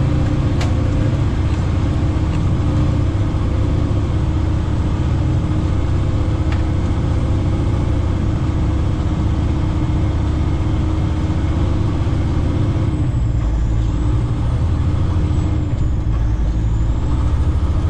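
Heavy-haul semi truck's diesel engine running steadily, a deep, even drone with no change in speed.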